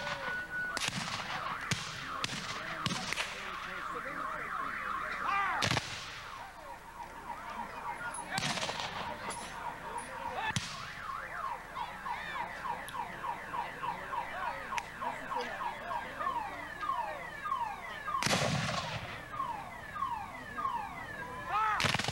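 Black-powder muskets firing in ragged volleys: a burst of scattered shots in the first three seconds, then single shots about six, eight and a half, ten and a half and eighteen seconds in, and another at the end. From about ten seconds in, a repeating falling chirp sounds two or three times a second between the shots.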